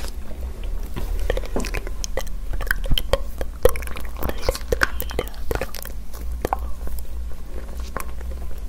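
Close-miked ASMR trigger sounds: irregular small clicks and crackles made right at a handheld recorder's microphone, over a steady low hum.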